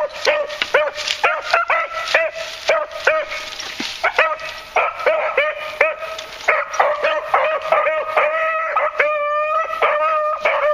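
Beagles baying on a scent line: a steady run of short, repeated yelps, about two or three a second, mixed with a few longer drawn-out bawls.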